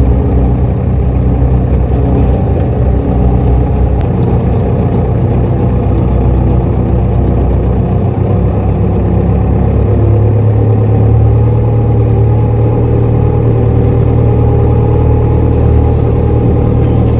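Diesel engine of a farm vehicle running steadily under load, loud and close, its note changing about ten seconds in.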